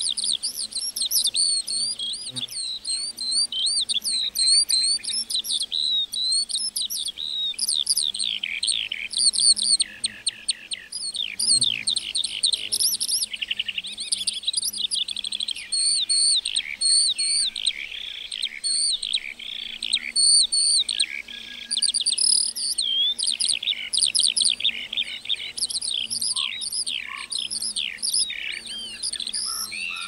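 A lark singing a long, unbroken stream of rapid high chirps, trills and warbles.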